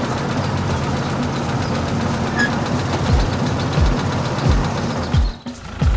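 Remote-control toy tracked excavator running with a steady engine-like hum as it drives off, with a series of low thuds about every two-thirds of a second from about three seconds in. The sound dips briefly near the end.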